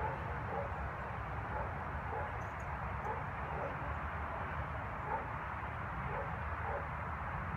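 Steady outdoor background noise, a low rumble and hiss at an even level, with faint short chirps every half second or so.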